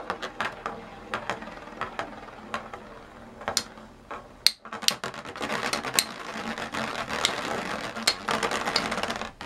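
Two Beyblade spinning tops, Tornado Pegasus and Tornado Lacerta, spinning and clashing in a plastic stadium, with sharp clicks as they strike each other and the walls. From about five seconds in the sound becomes a denser continuous rattle, which cuts off near the end.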